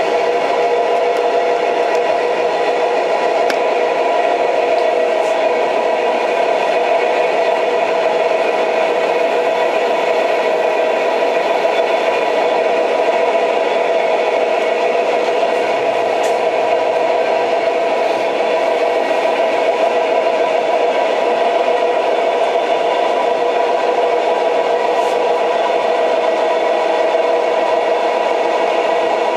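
Old train running steadily: a constant hum and whine with rattle, and a few faint ticks now and then.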